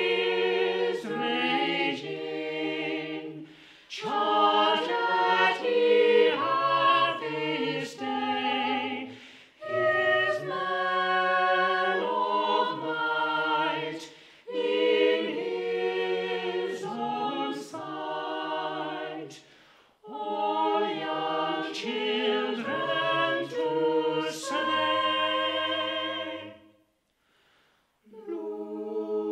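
Small mixed-voice chamber choir singing unaccompanied, in phrases of a few seconds with short breaks between them, falling silent for about a second near the end before the next phrase.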